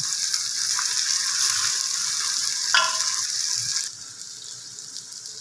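Sliced onions sizzling as they fry in hot oil in a pot, stirred with a spatula, on their way to golden brown. The sizzle drops sharply about four seconds in.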